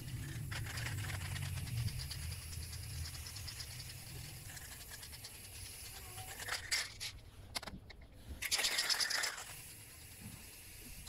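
Aerosol spray paint can spraying black paint onto a metal cabinet panel in hissing bursts, the loudest two about six and a half and eight and a half seconds in.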